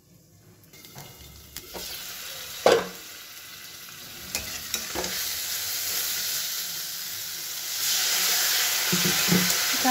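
Spiced potatoes and masala paste sizzling in an aluminium kadai as they are fried down (kosha stage), with a sharp clink about three seconds in. The sizzle grows and is loudest near the end, where a metal spatula stirs and scrapes the pan.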